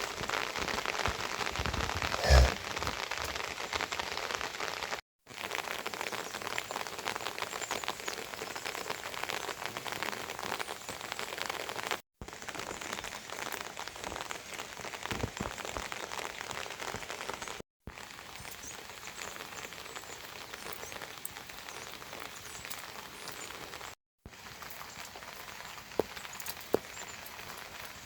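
Steady rain falling, an even hiss with scattered drip clicks. A loud thump comes about two seconds in and two sharp clicks near the end, and the sound drops out completely for a moment several times.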